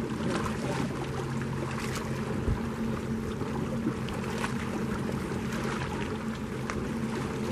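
Water splashing and lapping at a fishing boat's bow as a hooked bass is pulled up to be landed by hand, over a steady low motor hum, with one dull thump about two and a half seconds in.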